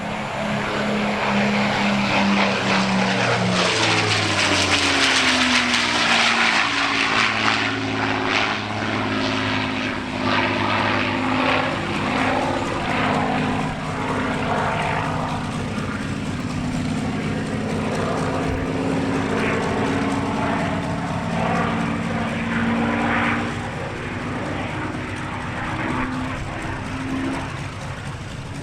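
The XP-82 Twin Mustang's two V-12 piston engines running loud as the aircraft passes. Their pitch drops over the first few seconds, the noise peaks a few seconds in, and then the engines carry on with a wavering pitch.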